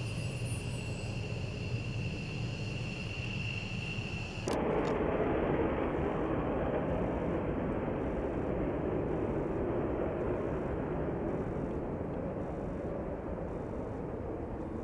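F-15 Eagle's twin jet engines whining steadily as it rolls along the runway. About four and a half seconds in, the sound cuts to the louder, lower jet noise of two fighter jets climbing away after takeoff, slowly fading.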